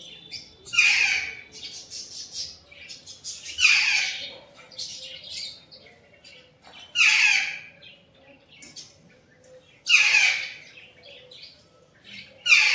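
Pet parrot squawking: a loud, harsh screech about every three seconds, five in all, with quieter calls in between.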